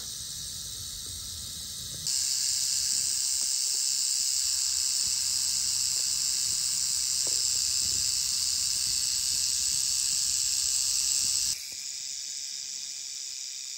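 Black-phase timber rattlesnake rattling its tail: a steady, high, dry buzz that is the snake's warning signal. It is louder through most of the middle and softer at the start and near the end.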